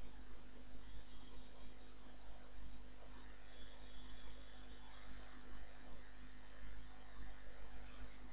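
Computer mouse clicking: quiet press-and-release pairs about once a second from about three seconds in. Under it a low steady hum, and a thin high whine that stops just before the clicks begin.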